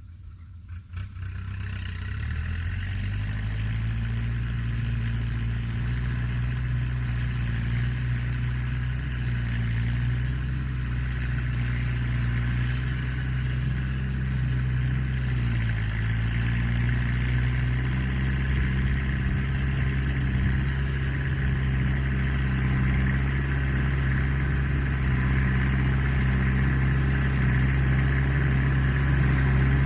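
Diesel engine of an LS Plus tractor running steadily under load with a deep rumble while pulling a 14x28 disc harrow. Its pitch dips briefly around the middle, and it grows slightly louder near the end.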